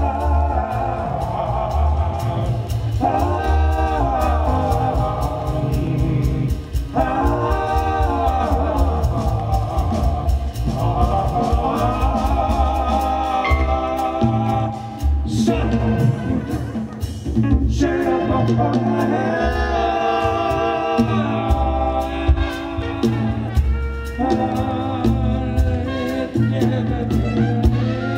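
A live jazz ensemble playing. A wavering melodic lead runs over a double bass and a steady beat.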